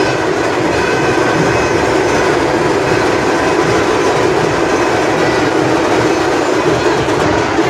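Loud, steady din of a large festival crowd.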